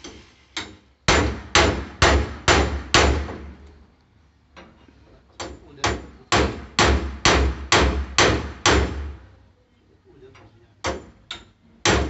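Hand hammer striking a metal bar on a welded lid frame, about two blows a second: a run of six, a short pause, a run of eight, then a couple more near the end. Each blow is sharp with a short metallic ring.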